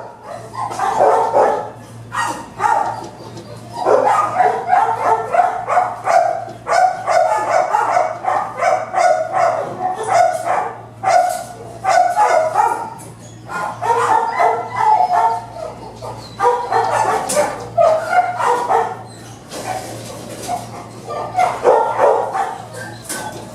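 Several dogs barking nonstop in a kennel, their barks overlapping, over a steady low hum.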